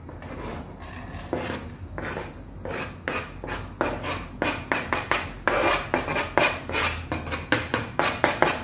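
Knife blade scraping minced parsley off a plastic cutting board onto a plastic plate, in repeated short scraping strokes. The strokes come sparsely at first, then from about three seconds in they come faster, about two or three a second, and louder.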